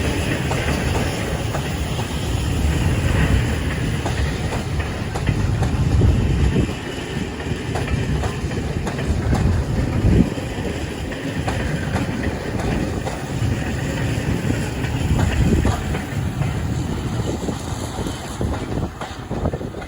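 A train running along the track: a steady rumble of wheels on rail with scattered knocks.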